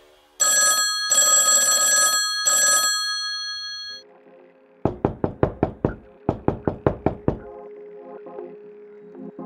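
Old telephone bell ringing in three short bursts, then a knocking sound effect: two quick runs of about six or seven raps each.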